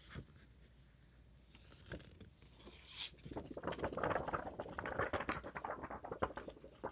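Sheets of paper being handled: a few small taps at first, then dense rustling and crinkling from about three seconds in as the sheets are shuffled and pulled apart.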